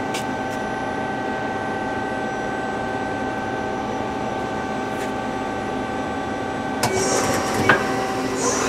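1988 Mazak Quick Turn 8 CNC lathe running a stored program: a steady machine hum with several steady tones, then about seven seconds in a louder hissing, rattling sound starts suddenly, with a sharp clack shortly after.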